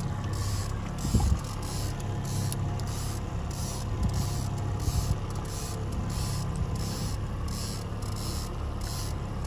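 Boat's outboard motor running steadily at trolling speed, a low hum under a high hiss that pulses about twice a second, with one thump about a second in.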